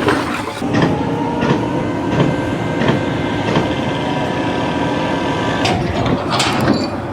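Steady mechanical running with a sustained multi-tone whine, punctuated by sharp clacks at fairly regular intervals.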